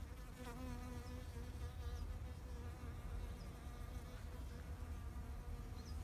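A bee buzzing in flight among flowers. The buzz starts about half a second in and wavers slightly in pitch, over a low rumble.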